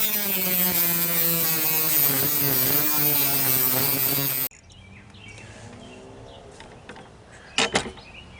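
A small electric cutting tool with a cutting blade runs under load, its whine sagging and wavering in pitch as the blade bites into the part. It stops abruptly about halfway through. After that there is quiet outdoor background with a couple of sharp clicks near the end.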